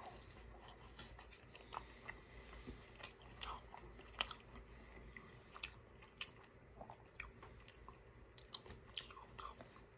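A person biting and chewing a breaded chicken strip up close, with faint, scattered mouth clicks and smacks.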